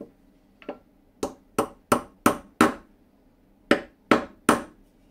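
A hammer driving a glued walnut wedge into the slot of a through-wedged tenon. It starts with two light taps, then five sharp blows at about three a second, a short pause, and three more blows.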